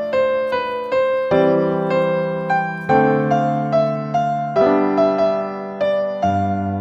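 Background piano music: a melody of single notes over held chords. About six seconds in, a new, lower chord rings on.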